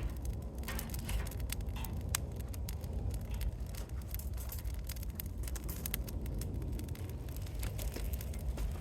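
Wood campfire crackling: scattered sharp snaps and pops over a steady low rumble.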